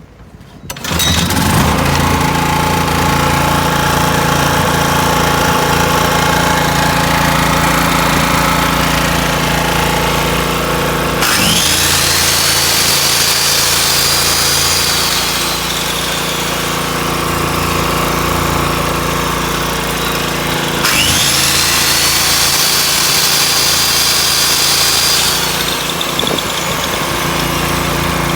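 Suzuki SV2000L portable generator's engine starts about a second in and then runs steadily. Twice, about 11 s in and again about 21 s in, a power tool whirs up to a high whine for about four seconds and winds down. The engine note dips as each comes on, in the way a generator takes up a load.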